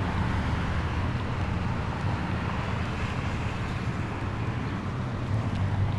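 Steady wind rumble on the microphone, with road noise from a bicycle rolling over pavement.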